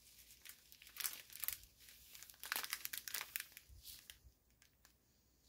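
Faint crinkling and rustling of small plastic bags of diamond painting drills being handled, in irregular crackles that stop about four seconds in.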